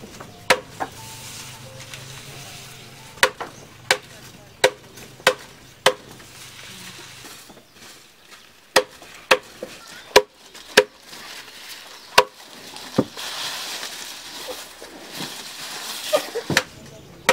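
Machete chopping green grass fodder on a wooden log block: a series of sharp chops, mostly in quick runs about half a second apart, with a rustle of the cut grass being gathered near the end.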